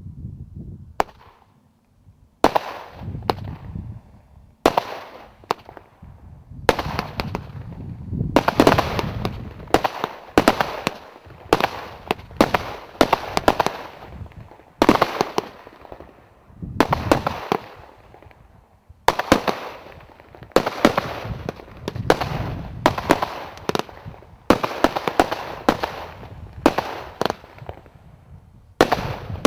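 Category 3 firework cake firing shot after shot, a sharp bang every second or two. Each bang is followed by a second or so of dense crackling from the bursting stars.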